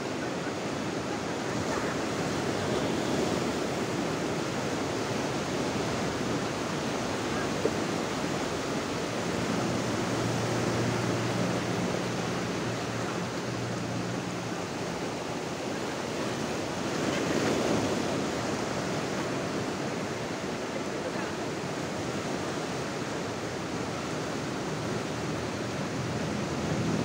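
Ocean surf breaking and washing over a shallow beach: a steady rush of water that swells louder about two seconds in and again at around seventeen seconds.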